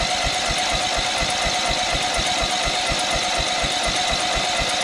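Lawn tractor engine being cranked over by its electric starter for a compression test: a steady starter whine over an even, rapid beat. The engine has very low compression, only 25 psi, far too little to start, which the owner puts down to the valves.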